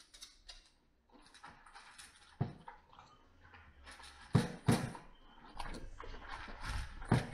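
Pug puppy eating dry kibble from a bowl: scattered crunching, with several sharp clacks as the bowl knocks against the wall and floor, the loudest a pair about four and a half seconds in.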